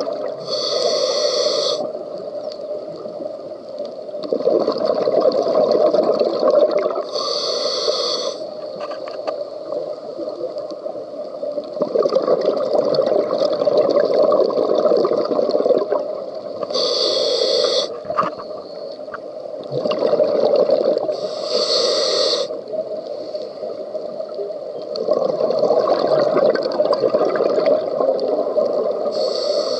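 A scuba diver breathing through a regulator underwater. About five short hissing inhales come through the second stage, roughly every seven to nine seconds, and each is followed by a few seconds of gurgling exhaled bubbles.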